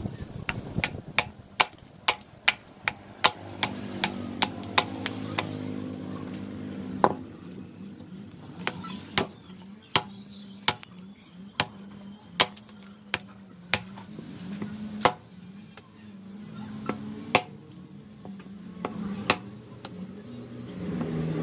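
Hatchet blade chopping into a rosewood block, sharp strikes of steel into wood. They come quickly at first, about two to three a second, then slow to roughly one a second with longer gaps.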